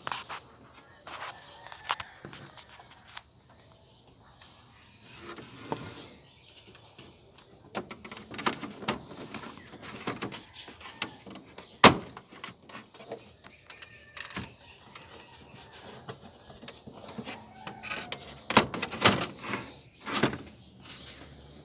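Plastic front grille clips of a Nissan Navara being pushed and worked loose by hand: scattered plastic clicks and knocks. The sharpest click comes about twelve seconds in, and there is a cluster of knocks near the end.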